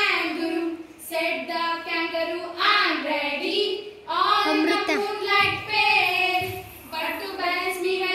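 A schoolgirl singing solo into a microphone, unaccompanied, in long phrases with held notes and short pauses between them.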